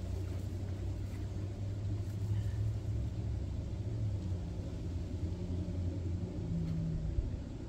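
Steady low rumble of an engine running, with a steady low hum that shifts to a slightly higher pitch about halfway through.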